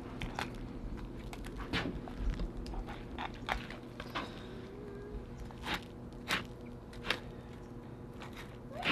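Fillet knife cutting a crappie's fillet away from its rib bones and skin: a scattered, irregular series of short crunches and snaps.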